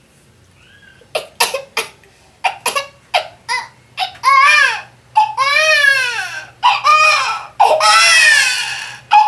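A man's voice imitating a baby crying: a few short choked sobs, then long high wails that rise and fall in pitch.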